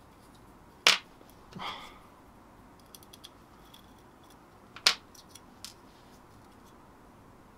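Two sharp clicks about four seconds apart, with a soft rustle and a few faint ticks between them: small plastic and metal parts of a DJI Air Unit transmitter module snapping and scraping as they are pried apart by hand.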